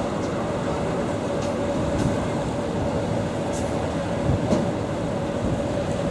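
Steady drone of a Rhine passenger boat's engine heard on deck: a constant hum over a low rumble, with a brief louder knock about four and a half seconds in.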